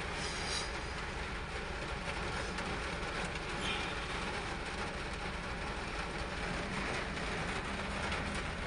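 Steady rumbling hiss of heavy rain and road noise, heard from inside a vehicle on a flooded road.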